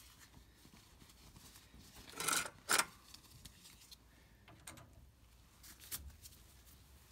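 Short rustling and scraping handling noises from gloved hands and a pair of pliers, the loudest two close together about two and a half seconds in, with a few smaller ones near the end.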